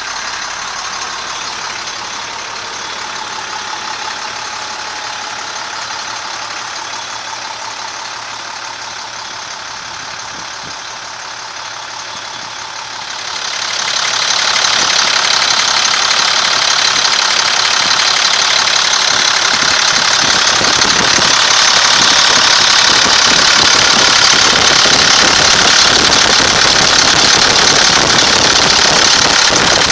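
International DT466 inline-six diesel idling steadily with a diesel clatter. About halfway through it becomes louder and brighter, heard up close at the open engine bay.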